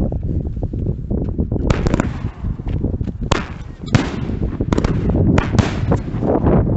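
Two 500-gram fireworks cakes, a 12-shot and a 21-shot, firing together: an irregular string of loud shots thumping out of the tubes and cracking overhead, over a continuous low rumble.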